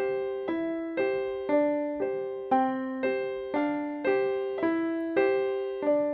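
Background music: a keyboard, piano-like, playing a steady run of chords, a new chord struck about twice a second and fading before the next.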